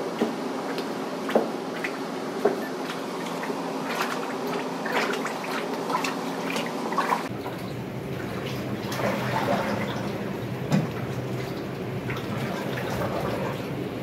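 Liquid clay slip sloshing as it is stirred by hand in a tank, with a few short knocks. After an abrupt change about halfway, slip is poured and splashes into a barrel. A steady hum runs underneath.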